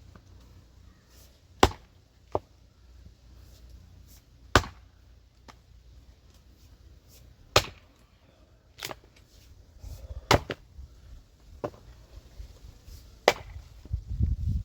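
An axe chopping firewood. Five sharp, loud blows land about three seconds apart, with lighter knocks between them.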